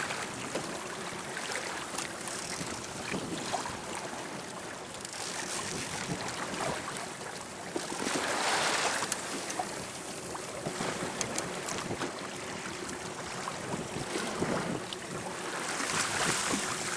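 Wind on the microphone and water splashing around a small fishing boat, a steady rushing hiss with scattered small splashes and ticks. It swells louder for about a second around eight seconds in and again near the end.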